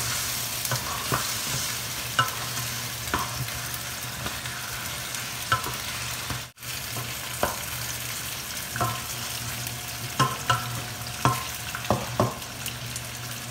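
Chicken pieces sizzling as they fry in a stainless steel skillet, stirred with a wooden spatula that knocks against the pan about once a second. A steady low hum runs underneath, and the sound drops out for an instant about halfway.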